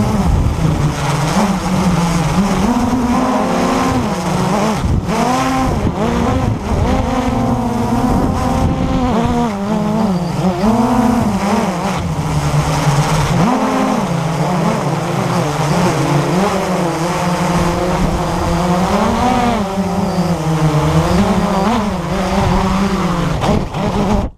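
Blade 350 QX3 quadcopter's brushless motors and propellers buzzing in flight, heard from the onboard camera, the pitch rising and falling continually as the throttle changes.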